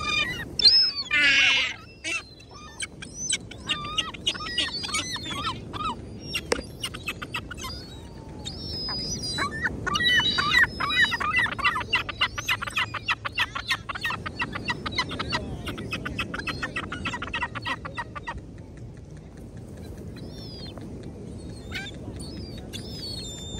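Gulls calling in quick runs of repeated yelping notes, thinning out after about 18 seconds, over a steady low rushing noise.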